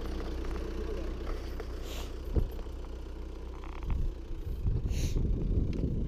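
Homemade backhoe's Mercedes-Benz W123 2.0-litre engine running steadily. There is a sharp knock a little past two seconds in, and a rougher, louder stretch with some clatter in the last two seconds.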